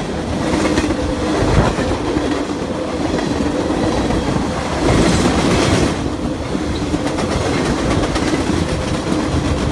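Gondolas and boxcars of a manifest freight train rolling past close by: a steady rumble and clatter of steel wheels on the rails, louder for about a second some five seconds in.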